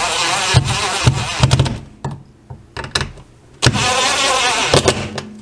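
Red cordless driver whirring as it runs in the screws of an old-work electrical box, drawing the box's flaps up tight against the back of the drywall. It runs in two bursts: about a second and a half at the start, then again for about a second near the end, its whine wavering in pitch.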